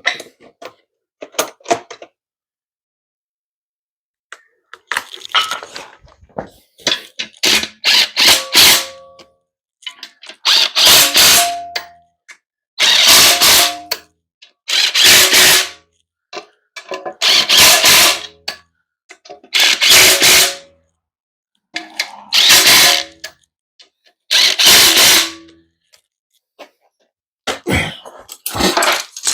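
Power tool running in a series of bursts of about a second each, roughly every two seconds, as bolts are run in on the transmission assembly.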